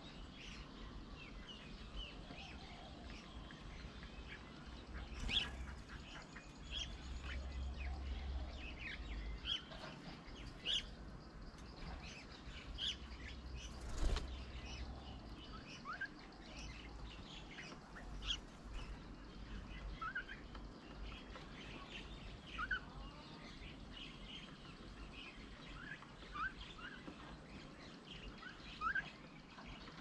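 Wild birds at a feeder calling with many short chirps and rising whistles, scattered and irregular. A few sharp knocks come through, the loudest about five and fourteen seconds in, with wing flaps among them.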